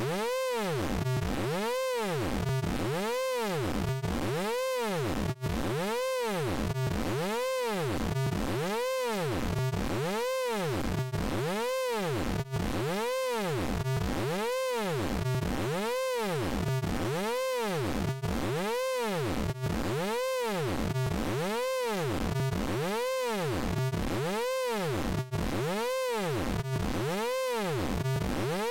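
Electronic tone with a buzzy, harmonic-rich sound, sweeping up and back down in pitch over and over, roughly three sweeps every two seconds, at a steady loudness.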